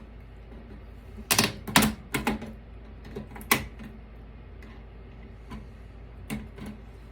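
Sharp clicks and clacks of hand tools and metal computer parts being handled on a workbench: a quick cluster of about six loud ones in the first half, then a few lighter taps.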